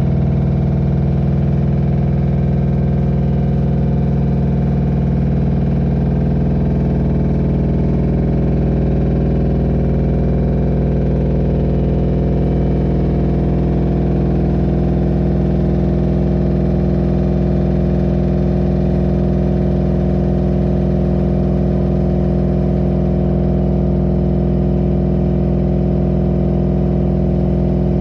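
LG F4V5RYP2T front-loading washing machine spinning at high speed, a loud steady motor and drum hum whose pitch drifts slightly. The owner takes the noise and vibration in the spin for a defect.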